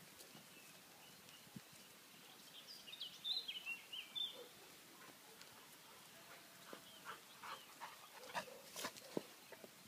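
A small dog yelping and squealing in play, with a quick burst of high-pitched yelps a few seconds in. Scattered knocks and thuds follow near the end.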